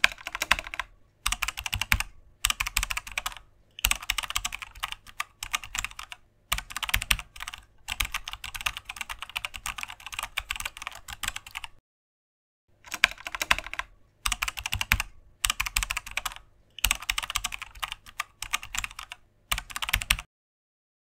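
Keyboard typing sound effect: runs of rapid key clicks separated by short pauses, each run matching a line of on-screen text being typed out. There is a break of about a second halfway through, and the typing stops about a second before the end.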